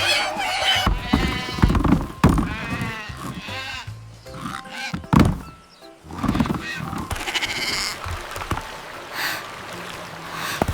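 Cartoon background music with animal-call sound effects, among them wavering calls about one to three and a half seconds in, and a sharp hit about five seconds in.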